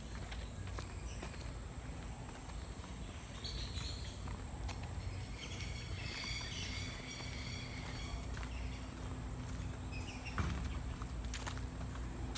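Quiet outdoor ambience with footsteps on a path, a steady high-pitched whine, and faint chirping calls between about three and seven seconds in.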